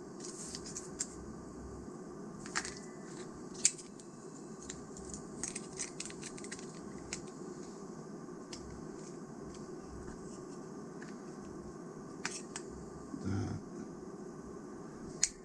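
Light, scattered clicks and ticks of small plastic toy parts being handled and fitted together by hand, over a steady low background hum.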